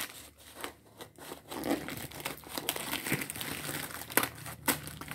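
Black plastic bag wrapping on a parcel crinkling irregularly as it is cut with scissors and torn away by hand.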